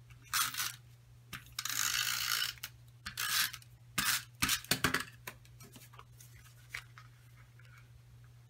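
Adhesive tape runner pulled along cardstock in three short strokes of dry scraping, the middle one about a second long, followed by a few light clicks and taps as the glued paper panel is laid down and pressed.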